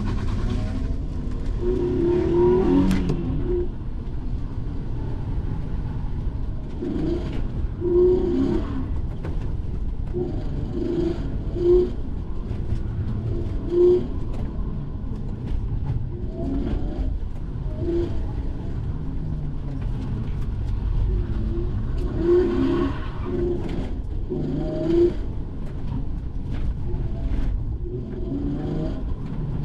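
Hyundai Genesis Coupe 3.8's V6 engine and tyre noise heard from inside the cabin, driving steadily through an autocross course on a wet track, with short pitched blips every second or two.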